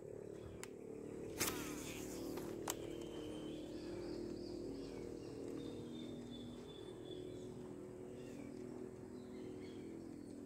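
Faint steady hum of a distant motor, with three sharp clicks in the first three seconds and faint high bird chirps near the middle.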